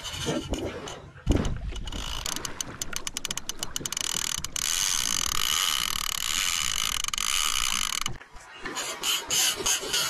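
Fishing reel's drag giving line to a hooked arapaima: a burst of rapid clicking that turns into a steady buzz for a few seconds and then stops suddenly, with more clicks near the end. A heavy splash from the thrashing fish comes about a second in.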